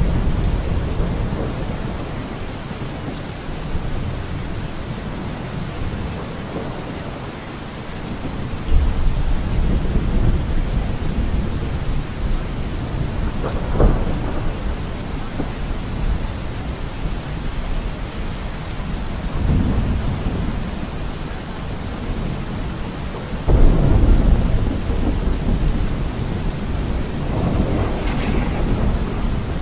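Steady rain falling, with thunder rumbling several times; the loudest roll comes in late on.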